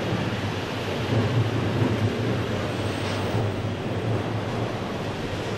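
JR East E7 series Shinkansen train running slowly past on the station tracks: a steady rumble of wheels and running gear over a low hum.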